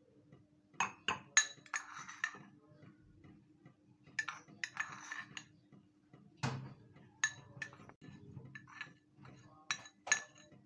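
A spoon clinking and scraping against a mug as crushed Oreo crumbs are spooned in, in a string of irregular taps with short scraping passes between them.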